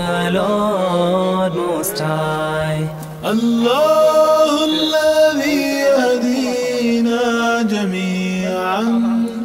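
Background music: a vocal chant sung in long held notes that slide and ornament between pitches, with a short dip about three seconds in.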